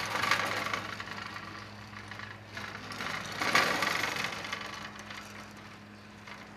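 Aluminium-framed sliding screen door running along its track in two strokes, the first at the start and the second a few seconds in. It rubs slightly at the back, where a hook-and-eye latch has not yet been removed.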